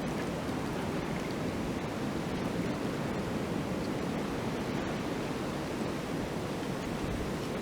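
Light wind blowing steadily: a soft, even rush of air with no gusts or breaks.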